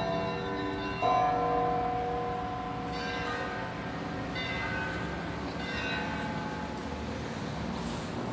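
Church bells ringing: a large bell is struck once about a second in and rings on, slowly fading, while smaller, higher bells chime over it about every one and a half seconds.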